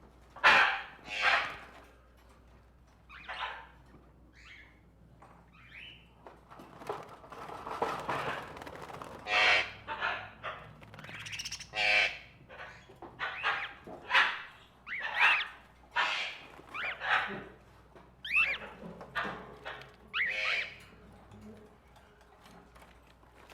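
Caged tropical birds squawking and chirping: many short, harsh calls in quick succession, some sliding up and down in pitch, thinning out near the end.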